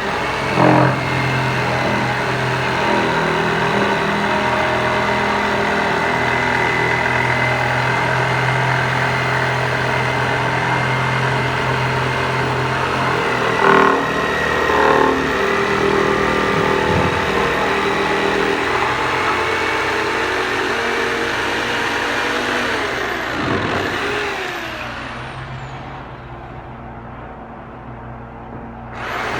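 An electric power tool's motor running steadily while shaping wood, with a few brief louder catches about halfway through, then dropping in level for the last few seconds.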